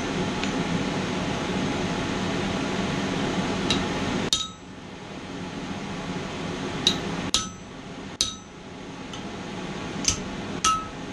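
Blacksmith's hammer striking steel on an anvil: about seven single blows spaced a second or more apart, each with a short metallic ring. A steady rushing noise under the first four seconds cuts off suddenly at the loudest blow, then comes back more quietly.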